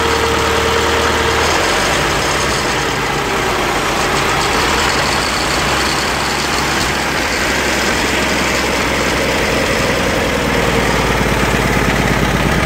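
Freshly rebuilt Ford Model T four-cylinder flathead engine running steadily on a test stand during its first run after a full rebuild. It picks up speed and gets a little louder near the end.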